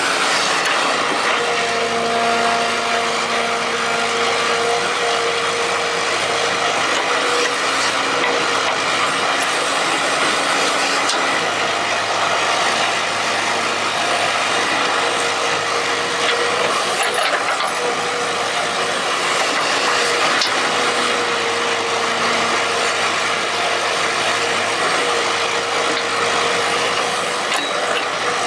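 Excavator running steadily while working, with a pitched whine from the machine that comes and goes several times.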